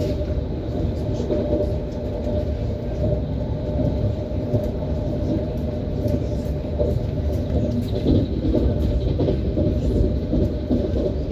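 ES1P 'Lastochka' electric train running at speed, its wheels giving a steady rumble on the rails.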